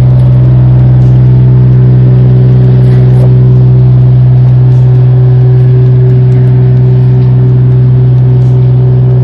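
Engine of the screed pump and mixer rig running at a steady speed while anhydrite screed is pumped through the hose: a loud, even drone with a strong low hum.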